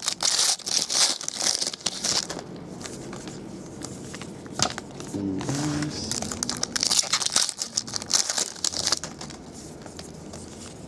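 Foil trading-card pack wrappers crinkling and tearing as packs are opened, in two spells of a couple of seconds each, with light ticks of cards being handled in between.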